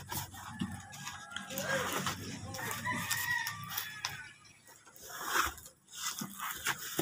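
A rooster crowing, a long pitched call through the middle, over the crinkle and scrape of a cardboard box flap being lifted and bubble wrap being handled.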